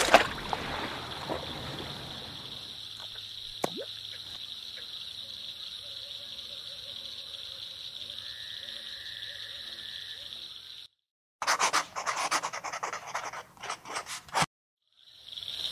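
Small splash of a fishing float dropping into a lake, then a steady high hiss of still-water ambience. After a sudden cut to silence, about three seconds of irregular scratchy, rasping noises, then silence again.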